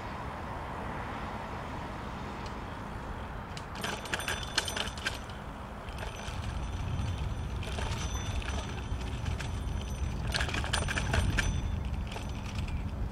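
Bicycle being ridden along a paved path: a steady low rumble, with two bouts of metallic rattling and clicking from the bike, about four seconds in and again about ten seconds in.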